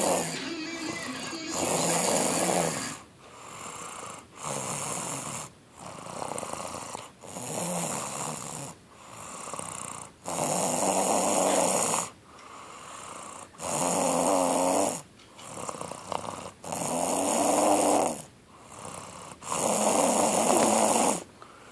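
Snoring: a loud, rasping snore on each breath, with quieter breathing between, in an even breathing rhythm.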